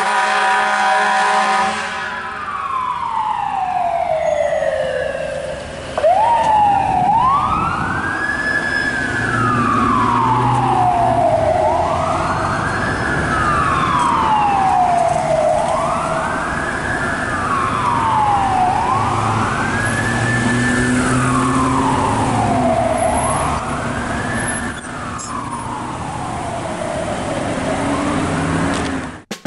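Siren of a 2015 International TerraStar rescue ambulance on an emergency run. It opens with a horn blast, winds down, and about six seconds in starts a slow wail that rises and falls roughly every two and a half seconds. A low engine sound runs underneath.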